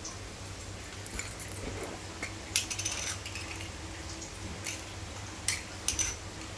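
Small sharp clicks and taps of hands handling an iPhone box and its packaging, in scattered clusters, the loudest about two and a half seconds in and again near the end, over a steady low hum.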